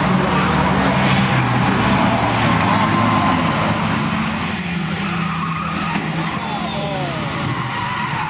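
Banger race cars' engines running loudly as a pack circles the track, with tyres skidding on the surface. The engine noise eases a little about halfway through, and a few short falling whines come near the end.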